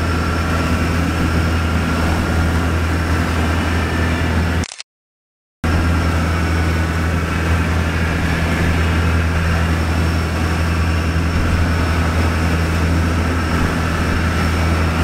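Fishing boat's engine running steadily with a deep drone, cut by a complete dropout of about a second roughly five seconds in.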